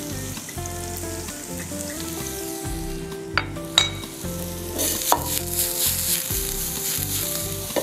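Chopped onions sizzling in hot melted butter in a cast-iron skillet, a steady frying hiss. A few sharp metallic clinks fall around the middle as the pan is handled.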